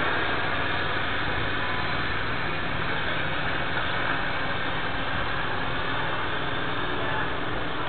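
Quadcopter drone's electric motors and propellers running steadily in flight, an even whir.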